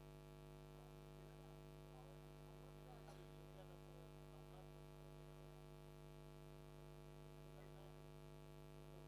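Near silence filled with a steady electrical mains hum.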